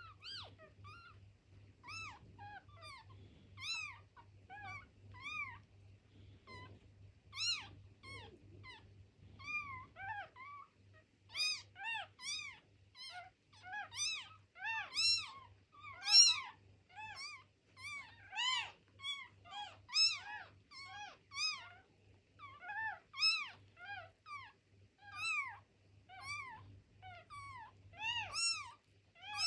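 Litter of two-day-old newborn kittens mewing: many short, high calls that rise and fall in pitch. They come sparsely at first, then two or three a second from about ten seconds in, with a faint low hum underneath.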